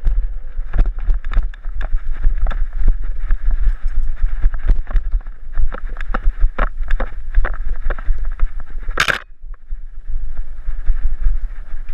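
Mountain bike ridden down a dirt singletrack, heard from a helmet-mounted camera: wind rumble on the microphone, tyres on dirt, and frequent clicks and rattles as the bike goes over the trail. A loud burst comes about nine seconds in, then it is briefly quieter.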